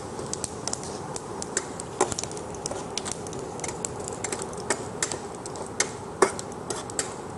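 Scattered, irregular sharp clicks and ticks as cumin, fennel and white sesame seeds are stirred with a spoon in oil in a pan.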